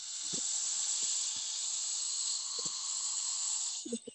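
Steady hiss of noise with faint low knocks underneath, dropping away near the end: the sound track of a Facebook video playing back on a phone.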